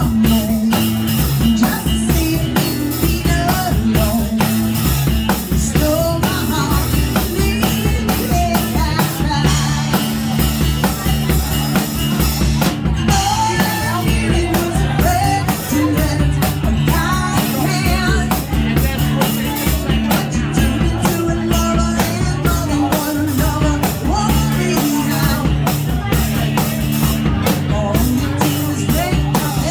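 Rock music played by a two-piece band, with a drum kit keeping a steady beat under a singing voice.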